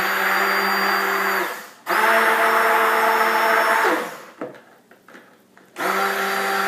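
Electric stick blender running in short pulses in a bucket of cold process soap batter: three bursts of about a second and a half to two seconds each, the third starting near the end. This is the final blend at emulsion stage, making sure the lemongrass essential oil is fully mixed in.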